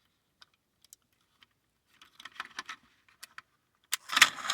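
Light clicks and small rattles of hands working the toy robot's switch and mechanism, then about four seconds in a sharp click and a louder scratchy rush as the mechanical voice box starts to play.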